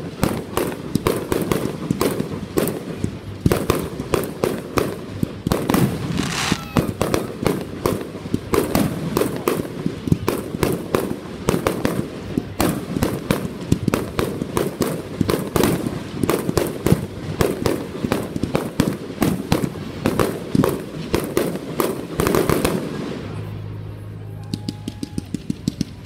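Aerial fireworks going off in a dense, rapid barrage of pops, bangs and crackles. It breaks into a brief lull a little before the end, then another quick run of pops starts.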